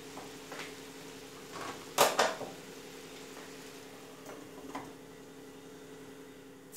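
Slotted plastic spatula working through noodles in a nonstick frying pan, with two sharp knocks in quick succession about two seconds in, then a stainless steel lid set down on the pan. A steady low hum runs underneath.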